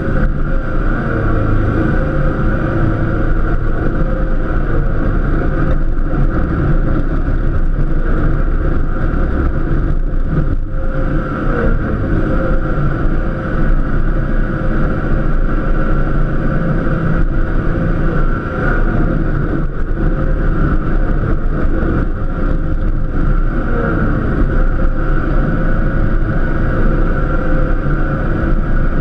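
Cub Cadet LTX 1050 KW lawn tractor's engine running steadily under load while plowing snow, with a constant higher whine above the engine note.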